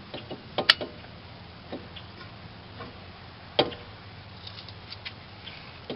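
New brake pads clipping into a 1996 Ford Mustang GT's brake caliper: a few sharp metallic clicks, the loudest a quick cluster just under a second in, another single click a little later and one about three and a half seconds in, with light ticks near the end.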